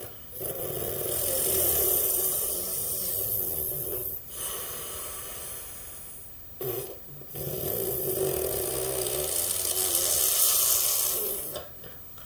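Mouth noise made by blowing air past a miniature Rubik's cube held inside the cheek, an attempt to imitate a motor engine. It comes in two long blows, the first about six seconds and the second about five, with a short break between.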